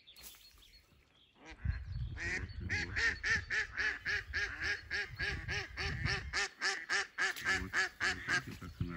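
Live decoy hen duck quacking in a long, rapid, even series of about three or four quacks a second, starting about a second and a half in: the decoy calling for a drake.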